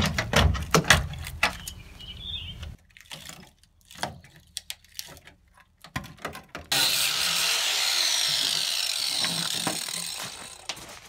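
Rusted sheet-metal wheel-arch panel clattering and crackling as it is wrenched loose by hand, with scattered knocks. About two-thirds in an angle grinder starts cutting through metal, running steadily for about four seconds, then fading out near the end.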